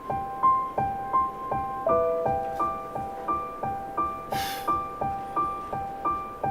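Soft solo piano playing a gentle, evenly repeating figure of about three notes a second, shifting to a new chord about two seconds in.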